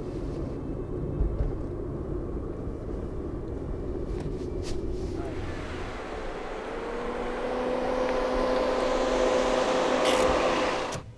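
Car on the move: a steady low engine and road rumble, then a car approaching along the street, its tyre hiss and engine hum growing louder as it pulls up. The sound cuts off abruptly just before the end.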